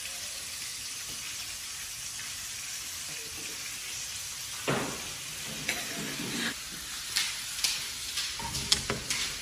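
Crayfish pieces deep-frying in hot oil, a steady sizzle. From about halfway, a few sharp knocks and clatters break in over it.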